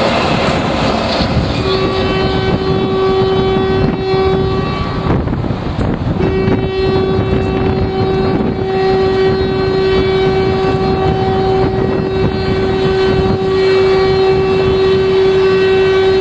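Manchester Metrolink tram no. 1008, a T-68 light-rail car, running with a steady whine and rumble. The whine cuts out briefly about five seconds in, then holds steady to the end.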